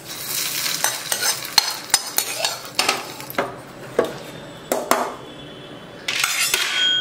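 Hot oil tempering with mustard seeds and curry leaves sizzling as it is tipped into peanut chutney in a steel pot. A spoon then stirs the chutney, knocking against the pot every second or so.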